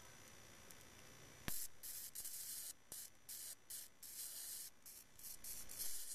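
High-voltage discharge hissing from a vintage colour TV's flyback as a screwdriver is held near it. A sharp snap comes about a second and a half in, then a spraying hiss that starts and stops in irregular spells. It is the sign of high-voltage leakage through the freshly applied silicone.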